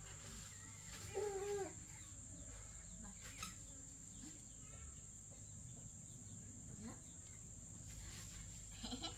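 Faint, steady high-pitched insect buzz, with a short pitched call about a second in.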